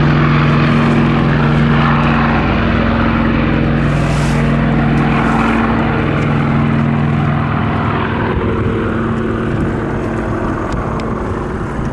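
Canadair CL-215 water bomber's twin propeller engines droning steadily at high power as it skims the lake scooping water and then climbs away. The sound eases off somewhat in the last few seconds.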